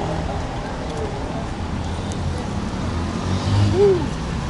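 Street traffic with a car engine running nearby, a steady low rumble. A short tone rises and falls near the end.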